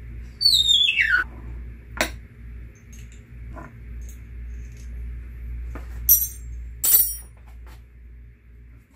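Screws being worked out of a Dobsonian telescope base by hand. There is a short squeak falling in pitch about half a second in and a click at two seconds. Two sharp metallic clinks come about six and seven seconds in and are the loudest sounds.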